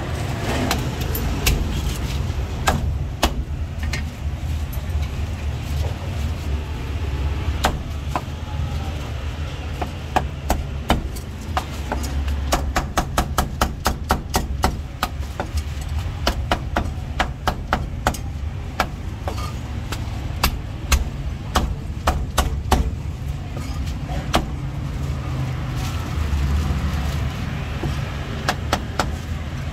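Meat cleaver chopping crispy roast pork belly on a thick round wooden chopping block: sharp knocks, a few at first and then quick runs of chops. A steady low rumble runs underneath.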